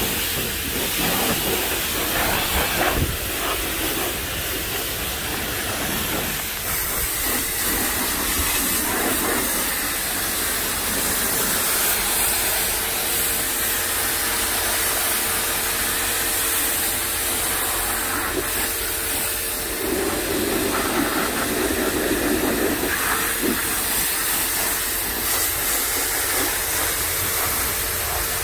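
Greenworks pressure washer spraying a jet of water onto a van's wheel and side panels: a steady hiss of spray striking the bodywork, with a faint steady hum from the washer underneath.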